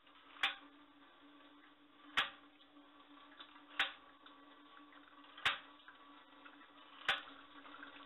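Small tap-driven Washerette washing machine running off the kitchen faucet: a faint steady hum of water driving it, with a sharp click from its mechanism about every second and a half, five in all.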